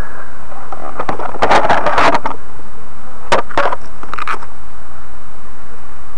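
Loud steady hiss with several bursts of crackling, about a second in, past three seconds and past four seconds.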